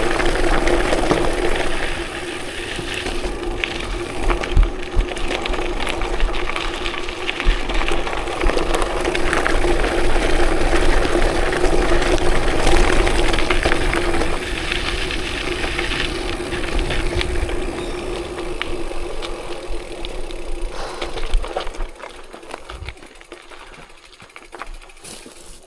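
Vehicle engine running at a steady pitch, with rattling and knocks from the vehicle; the sound drops off about 21 seconds in.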